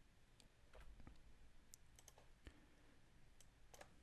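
Faint, scattered clicks of a computer mouse and keyboard, about ten of them, some in quick pairs, against near silence.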